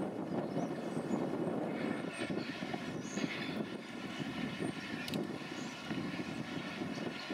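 Distant GBRf Class 66 diesel locomotive working, heard as a steady low rumble with a few faint high chirps over it.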